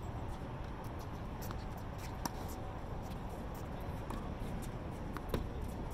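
Steady outdoor background noise with two sharp knocks about three seconds apart, tennis ball impacts during play.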